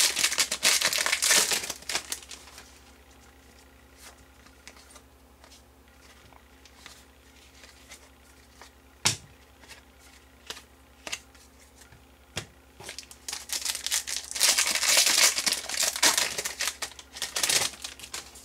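Foil wrapper of a hockey card pack crinkling loudly as it is torn open and handled for the first two seconds, then a few soft clicks and snaps of the cardboard cards being handled, and a second long stretch of crinkly rustling near the end.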